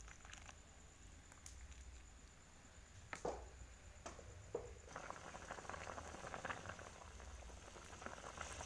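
Coconut-milk stew of chicken giblets and feet bubbling faintly at the boil in a pot, with a few knocks of the ladle against the pot. The bubbling becomes denser from about halfway through.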